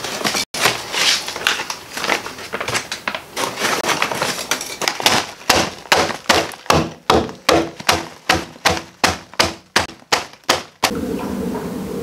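Lumps of charcoal rustled in a paper sack and a plastic zip bag, then struck over and over, about three sharp blows a second for some six seconds, breaking the charcoal down to powder.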